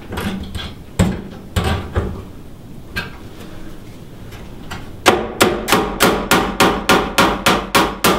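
Hammer driving the nails on a recessed can light's hanger-bar legs into the wooden rafters. A few scattered strikes come first, then from about five seconds in a quick, even run of blows about three a second.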